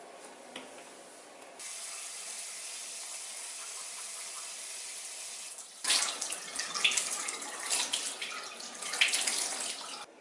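Water running from a tap into a sink: a steady stream starts about one and a half seconds in, turns louder and uneven, splashing, about six seconds in, and stops just before the end.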